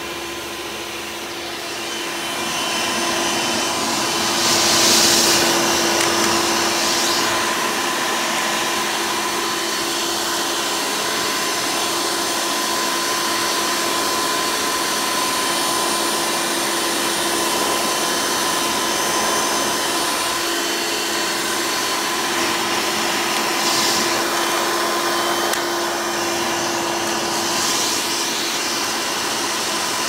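Hoover Elite upright vacuum with a direct-air (dirty-fan) motor running in tool mode, pulling air through its hose and wand over carpet. It makes a steady whine with rushing air, gets louder about two seconds in, and swells into a brief hiss a few times.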